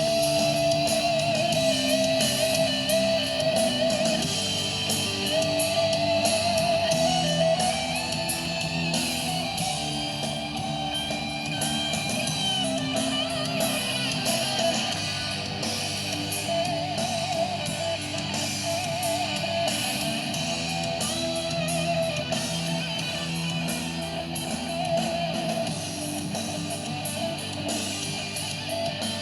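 A rock song with strummed electric guitar playing through a Harley-Davidson Electra Glide's aftermarket stereo: Hertz mid-ranges and tweeters in the fairing, driven by a bridged Rockford Fosgate marine amplifier, and Rockford Fosgate 6x9 speakers in the saddlebags.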